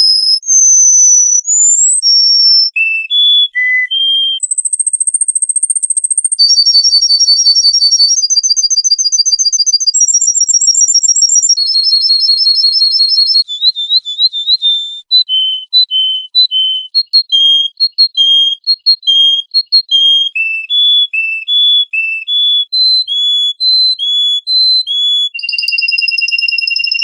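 Songbird singing a varied run of clear whistled notes: single notes jumping up and down in pitch, a fast buzzy trill in the middle, then a long series of short notes repeated about twice a second, closing on a long held whistle.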